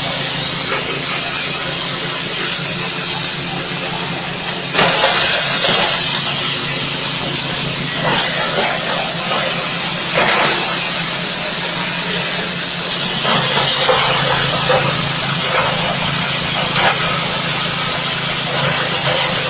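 Forage chopper-grinder driven by a 6.5 hp engine, running continuously with a steady engine hum under a dense, hissing rush. The rush grows louder briefly about five seconds in, again about ten seconds in, and for a stretch a little later.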